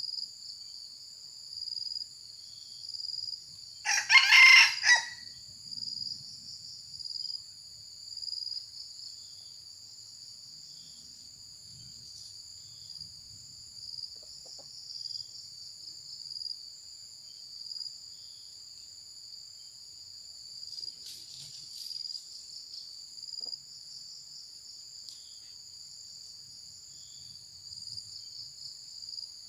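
A rooster crows once, loud and short, about four seconds in, over a steady high trilling of crickets or other insects. A fainter call comes about two-thirds of the way through.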